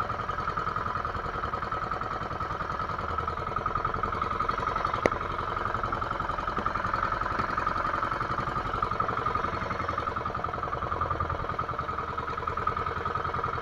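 Outrigger fishing boat's engine running steadily, with one sharp click about five seconds in.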